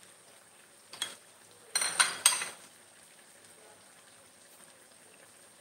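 Metal cookware clinking: a light click about a second in, then three sharp, ringing metallic clinks close together about two seconds in.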